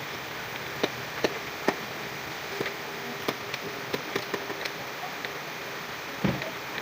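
Irregular light taps and clicks of hand work on wood, about a dozen over several seconds, with a duller knock about six seconds in, over a steady hiss.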